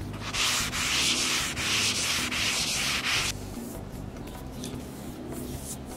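Green abrasive scouring pad rubbed briskly back and forth over a wooden butcher-block countertop, working in tung oil. The scrubbing stops about three seconds in.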